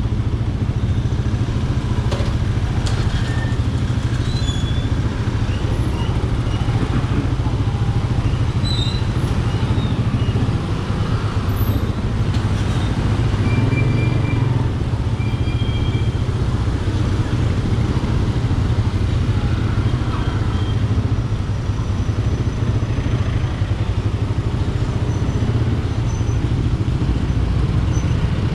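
Motorcycle engine running at low speed in slow, crowded street traffic, a steady low hum, with other cars and scooters close around.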